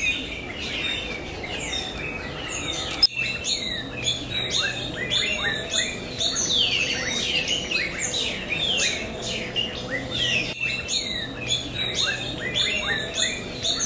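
A chorus of small birds chirping, a steady stream of quick downward-sliding chirps, broken twice by a brief dropout.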